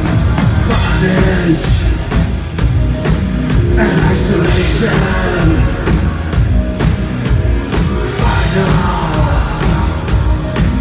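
Electro-industrial band playing live through the venue's PA: loud, dense music with a driving drum beat.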